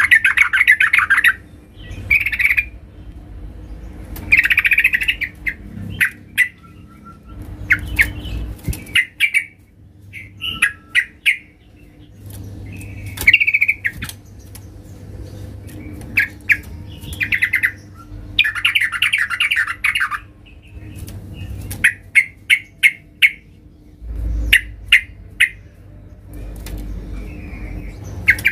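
Yellow-vented bulbul calling loudly in repeated short phrases of rapid, harsh chattering notes, with gaps of a second or two between phrases: vigorous territorial calling of a bird in full voice.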